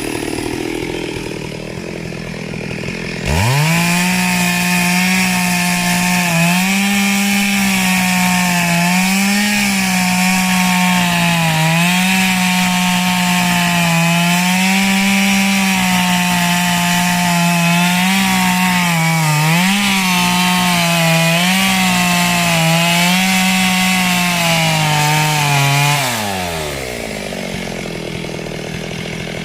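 Chainsaw cutting wood: it idles, is suddenly opened up to full throttle about three seconds in, and is held there for over twenty seconds with its pitch dipping and recovering under the load of the cut, then drops back to idle near the end.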